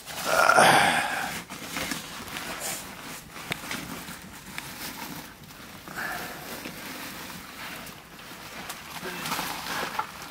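Woven plastic sack rustling and crinkling as it is handled and rummaged in, loudest about half a second in, with smaller rustles later.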